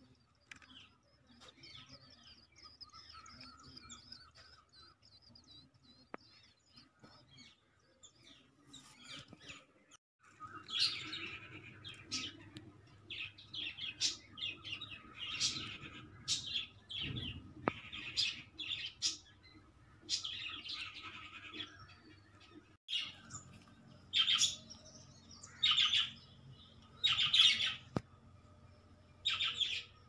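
Tailorbird nestlings cheeping from the nest: faint high thin chirps at first, then, about a third in, repeated louder bursts of begging chirps every second or two.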